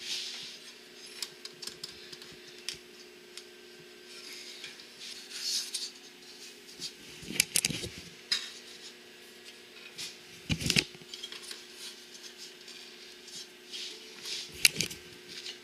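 Scattered metal clinks and rattles from a kerosene heater's sheet-metal parts as its wing nuts are tightened by hand, with one louder knock about eleven seconds in. A faint steady hum runs underneath.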